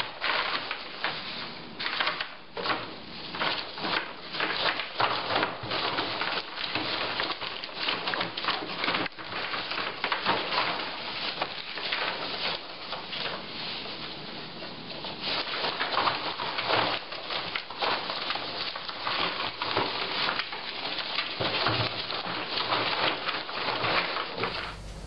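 Foam packing peanuts rustling and crackling as two ferrets scramble and burrow through a tub full of them, a dense run of small clicks that stops abruptly just before the end.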